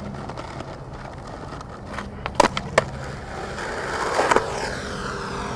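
Skateboard wheels rolling on smooth concrete, with a few sharp clacks a little past two seconds in. The rolling swells louder about four seconds in, then eases.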